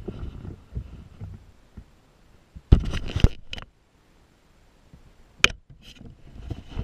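Handling noise on a body-worn camera: clothing and hands rubbing and bumping near the microphone, with a short loud rustle about three seconds in and a single sharp click about five and a half seconds in.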